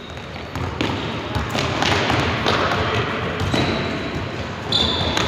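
Ball bouncing and thudding on a hard court floor during a youth team game, over a mix of players' calls and spectators' voices.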